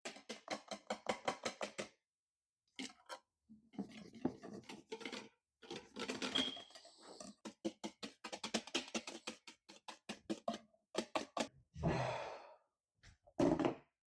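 A wire whisk beating egg whites by hand, clicking rapidly against the bowl at about six strokes a second, in several runs with short pauses between them.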